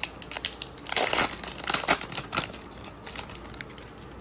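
Foil booster pack wrapper crinkling and tearing as the trading-card pack is opened, with the loudest rip about a second in and more crackling bursts near two seconds.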